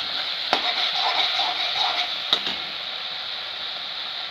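Spice paste sizzling as it fries in oil in a metal kadai, with a metal spatula stirring it and knocking against the pan twice in the first half.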